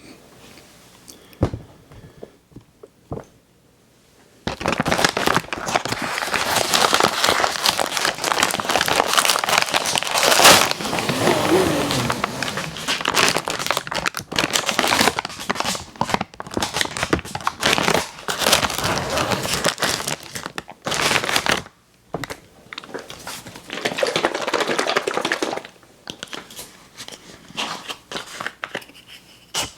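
Plastic packaging of Chips Ahoy! cookies crinkling and tearing as it is handled, in long dense stretches with short pauses. A few light clicks come before it starts.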